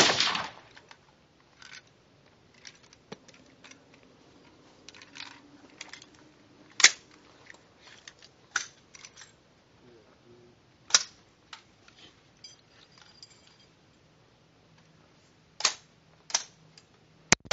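The ringing tail of an AR-15 carbine shot fades in the first half second, followed by scattered sharp metallic clicks and clacks as the rifle is handled and readied between shots. The loudest clicks come about seven and eleven seconds in, with two more near the end.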